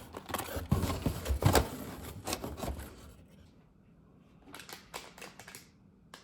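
Snack packaging being handled: rustling and quick clicks and knocks as packs are set into a box, busiest in the first three seconds, with a few more clicks near the end.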